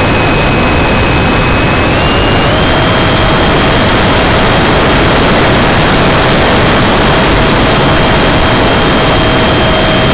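Electric ducted fan of a 70mm RC F-18 jet running in flight, heard from an onboard camera: a steady high whine over heavy wind rush. The whine steps up in pitch twice about two seconds in, then holds steady.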